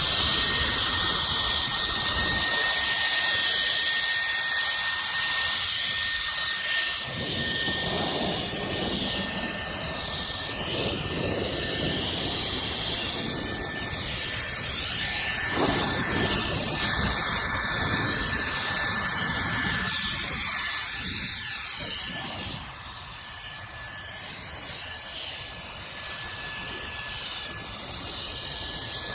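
Cordless electric air duster running: its high-speed fan motor gives a steady high-pitched whine over a rushing blast of air, switched on abruptly. The level drops somewhat about 22 seconds in and the air keeps blowing.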